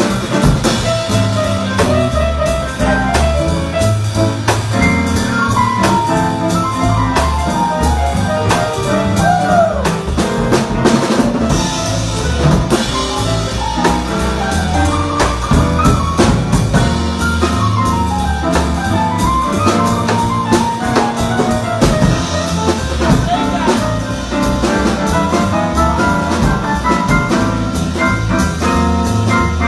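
Instrumental jazz: drum kit and bass keeping a steady beat under a lead melody that runs up and down.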